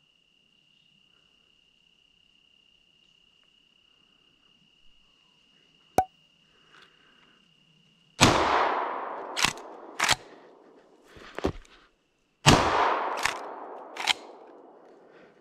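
Two shotgun blasts about four seconds apart, each with a long echoing tail. A couple of sharp clacks follow each blast.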